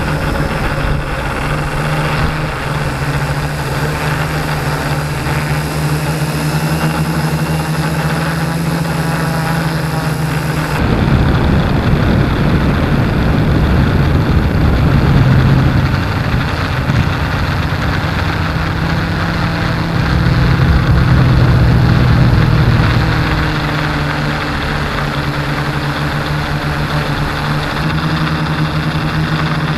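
An FPV multirotor drone's electric motors and propellers humming steadily, heard through the aircraft's onboard camera. From about 11 s to 23 s a louder rushing wind noise over the microphone rises above the hum, then settles back.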